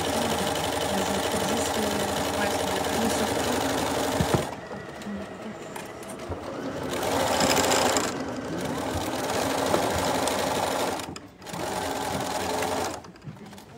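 Bernina 335 sewing machine stitching along the edge of a fabric headband. It runs steadily in several spells, easing off about four and a half seconds in, dropping out briefly near eleven seconds, and stopping near the end.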